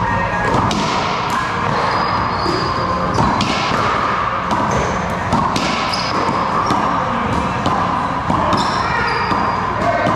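One-wall racquetball rally: a string of sharp smacks as the ball is struck by racquets and hits the wall and floor, with short sneaker squeaks on the court floor over a steady background hum.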